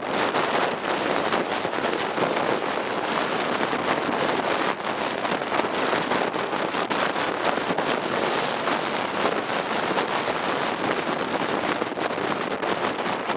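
Strong wind rushing over and buffeting the microphone: a dense, steady hiss that swells and dips in gusts, with no engine tone standing out.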